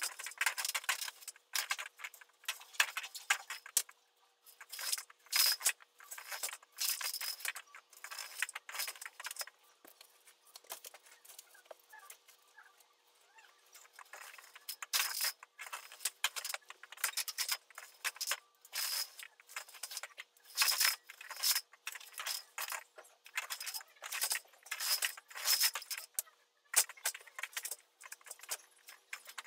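Horizontal window blind slats rattling and clattering in quick, irregular bursts as a duster is swept along them, with a quieter lull partway through.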